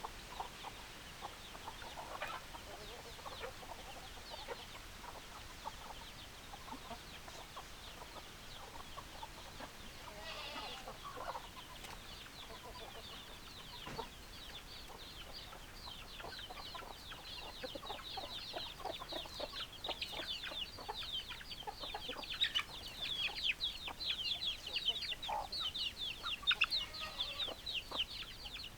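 Chickens clucking, with scattered lower calls and a dense chorus of rapid high chirps that builds through the second half and becomes the loudest sound.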